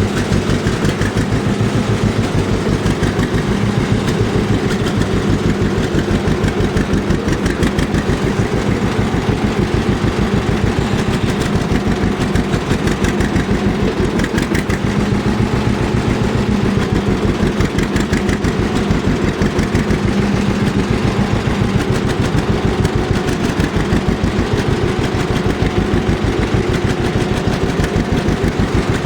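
Vintage tractor engine idling steadily, with an even beat of firing pulses.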